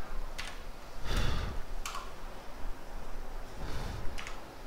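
About five sharp, scattered clicks from a computer mouse and keyboard as a command is copied, pasted and entered, with a duller knock and rustle about a second in.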